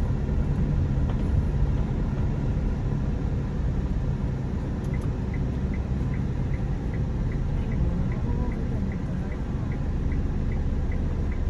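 Light delivery truck's engine running steadily at low speed, heard from inside the cab. From about five seconds in, a light regular ticking joins it, about three ticks a second.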